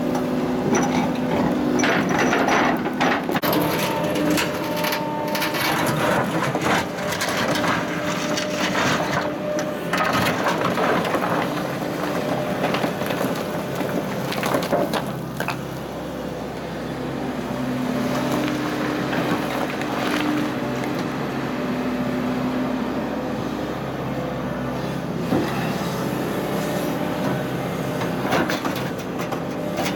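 Tracked excavator's diesel engine and hydraulics running steadily while its steel bucket digs through broken granite, with rocks scraping and knocking against the bucket and each other. The machine's hum shifts in pitch now and then as the hydraulics work.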